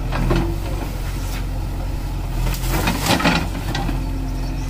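JCB 3DX backhoe loader's diesel engine running steadily, with a few sharp knocks a little past halfway.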